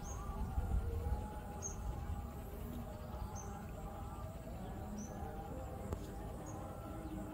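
Short high chirps of a small bird, about one every second and a half, over a low background rumble.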